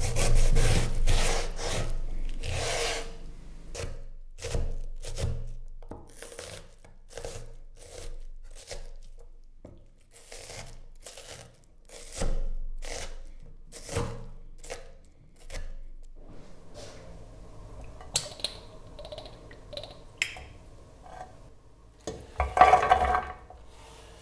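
Kitchen knife chopping an onion on a stone cutting board, a long run of sharp chops, several a second. Near the end, a louder scraping rush as the diced onion is pushed off the board into a pan.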